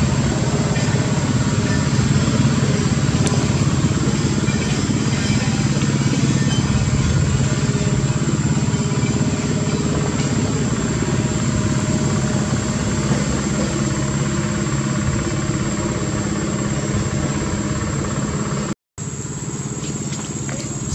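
An engine runs steadily throughout: a low, even hum with a faint constant high whine over it. The sound cuts out completely for a moment near the end.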